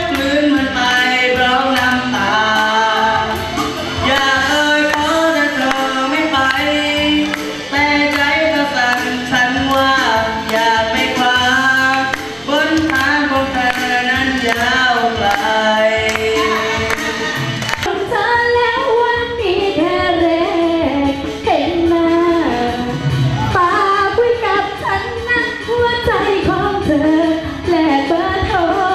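Amplified singing into a handheld microphone over backing music. About 18 seconds in it changes to a different song, sung by a young woman.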